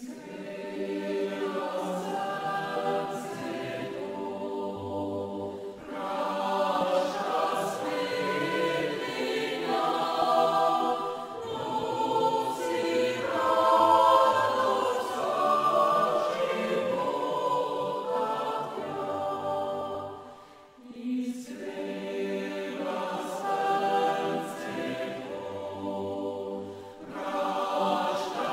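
A choir singing slow, sustained chords in long held phrases, with a brief break about twenty seconds in.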